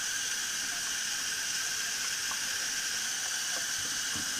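Thin stream of water from a kitchen faucet running steadily into a stainless steel sink.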